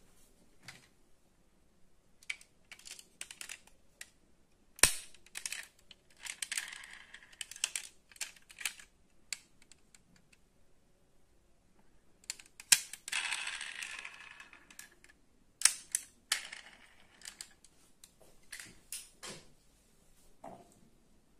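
Clicks and clacks of a small die-cast metal model car being handled, its hinged doors worked open, with brief scraping and rubbing in between. Two sharp clacks, about five seconds in and again near the middle, are the loudest.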